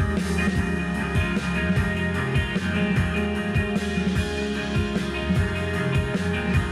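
Live rock band playing electric guitar, bass guitar and electric keyboard over a steady drum-kit beat.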